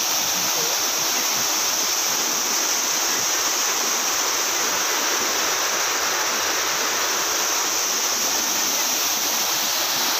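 Water cascading down the steps of a concrete weir into a rocky stream: a steady, unbroken rushing.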